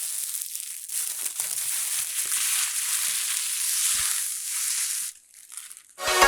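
Crinkling, crackling rustle of plastic packaging being handled, running for about five seconds with a few faint clicks, then fading out.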